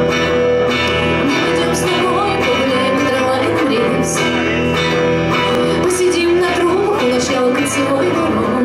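A woman singing live into a microphone, accompanied by an electric guitar playing chords.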